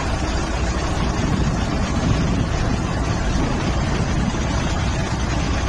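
Steady, deep outdoor noise of wind on a phone's microphone mixed with road traffic.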